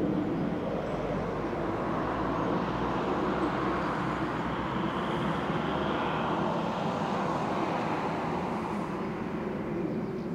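Steady outdoor background noise: a low, even rumble and hiss like distant traffic, without any distinct events.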